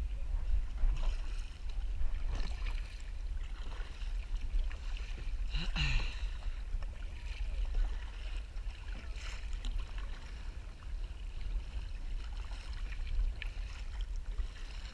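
Kayak paddle strokes, the blade splashing into the water every second or two, with water washing along the hull over a steady low rumble.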